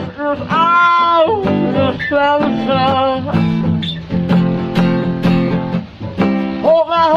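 Acoustic guitar strummed in steady chords, accompanying a person singing long, wavering held notes.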